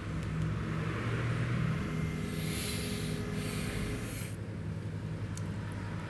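A steady low mechanical hum, with a brief hiss from about two to four seconds in and a few faint clicks near the end.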